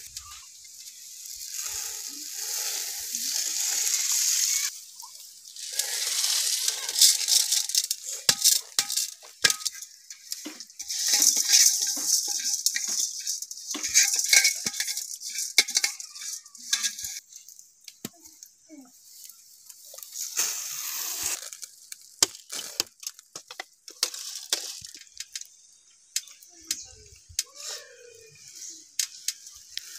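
Dry grain poured in several spells from an aluminium pot onto a jute sack mat, a rushing hiss with clinks and rattles from the pot. Near the end, hands spreading the grain across the sack give softer scattered clicks and rustles.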